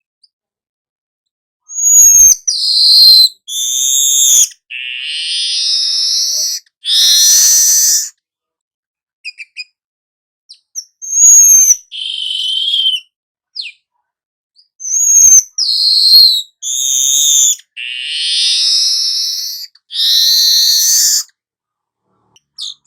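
Weaver bird (manyar) song in two bouts, each opening with a few sharp, high whistled notes that drop in pitch and then running into long, buzzy, hissing notes, with silent gaps between bouts. This drawn-out buzzy run is the 'nyerut' song that keepers play as a master recording.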